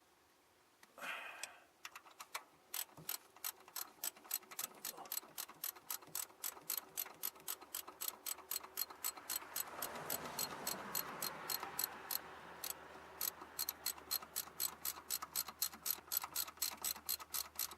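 Ratchet wrench clicking steadily, about four or five clicks a second, as a bolt is turned while fitting a car starter.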